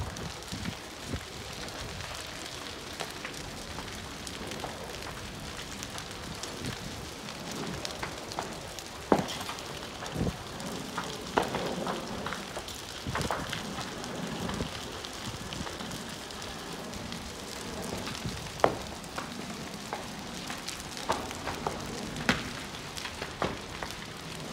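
A burning building crackling steadily, with a scattering of sharp pops and cracks that stand out above the crackle.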